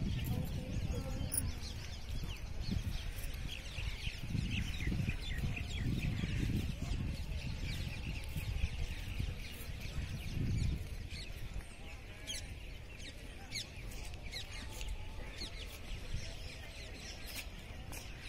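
Many birds chirping and chattering in a dense, continuous chorus over a low outdoor rumble that swells a few times in the first half.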